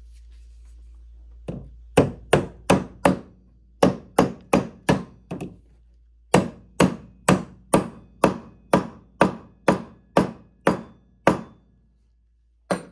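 A hammer tapping a plastic push-on axle cap onto the end of a toy ride-on car's steel axle rod, driving it home over the wheel. There are about twenty sharp knocks in three runs of steady blows, two to three a second with short pauses between the runs, then one last knock near the end.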